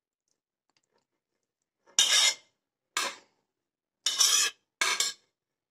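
A metal spoon scraping boiled sweet corn kernels out of a pot into a bowl. There are four short scrapes about a second apart, starting about two seconds in.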